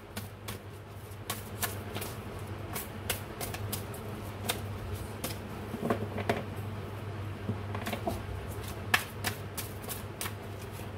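A deck of oracle cards being shuffled by hand: a run of irregular soft clicks and flicks as the cards slide and tap against each other, over a low steady hum.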